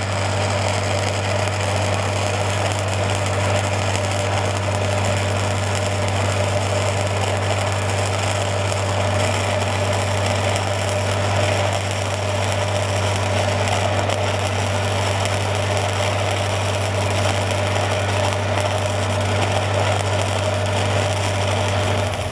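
Stick-welding arc on a steel pipe joint, running a downhill pass around a 5G test: a steady, even sizzle over a constant low hum.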